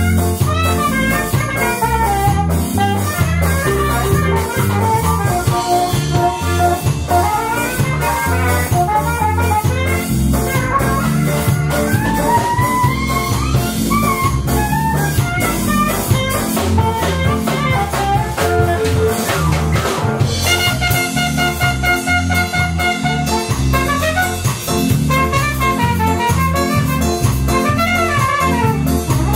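Live band music: a saxophone solos over bass and drum kit, and after a drum fill around two-thirds of the way through, a trumpet takes the lead.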